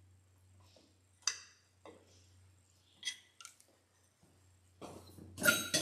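Scattered light metallic clicks and clinks of an outboard's shift-rod clamp and linkage being fiddled into line by hand, with a louder cluster of clicks near the end.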